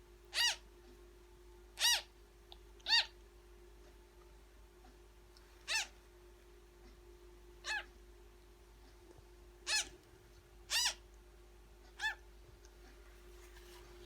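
Newborn African grey parrot chick giving eight short, high food-begging calls at irregular intervals, each a brief note that rises and falls. A steady low hum runs underneath.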